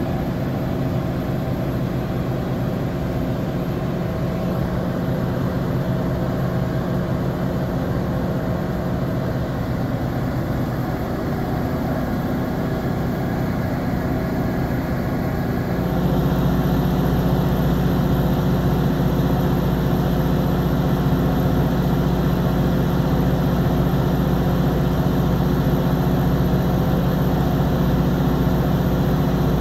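3-megawatt diesel backup generator set running steadily inside its enclosure, a deep even drone with a low hum. It gets louder, with a slightly different tone, about halfway through.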